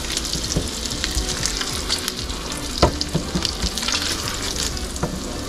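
Kielbasa slices sizzling and crackling in hot bacon grease in an electric skillet, with a plastic slotted spoon clicking and scraping in the pan as the pieces are scooped out. A sharper knock comes about three seconds in.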